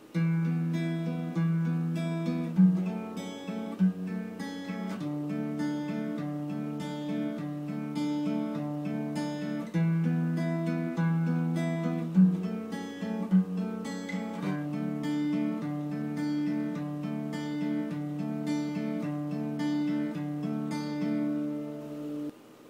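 Steel-string acoustic guitar with a capo, fingerpicked in a steady 16-beat arpeggio pattern, the bass note moving as the chords change. The playing stops shortly before the end.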